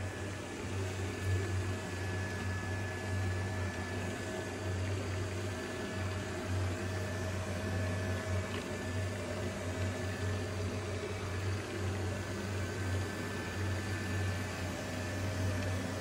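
XWOW R2 robot vacuum and mop running across a tile floor: a steady motor hum with a faint high whine over it.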